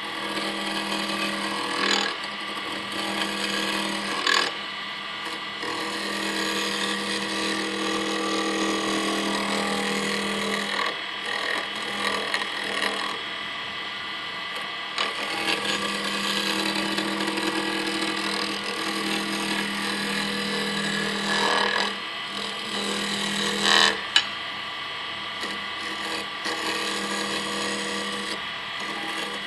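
Wood lathe running with a steady hum while a gouge cuts a spinning wooden sphere, the cutting noise swelling and dropping as the tool goes in and out of contact, with a few sharp knocks. The sphere is still slightly out of round on its third axis, so the wobble is being cut away.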